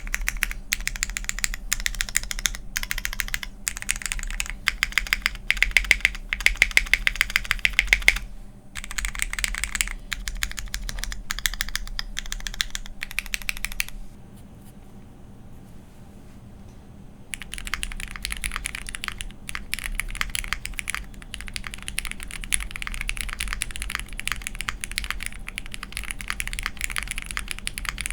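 Fast typing on a Crucible65 mechanical keyboard with lubed and filmed Cherry MX Black Hyperglide linear switches on an aluminium plate and GMK keycaps. The typing stops for about three seconds past the middle, then resumes with the keyboard tape-modded.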